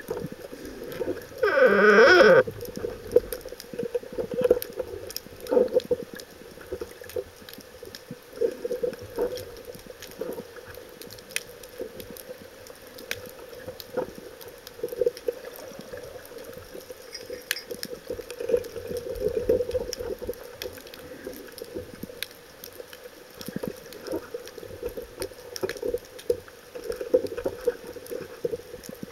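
Underwater sound heard through a camera's housing: water movement over a steady low drone, with scattered faint clicks and knocks. About two seconds in comes a loud, brief warbling burst whose pitch wavers.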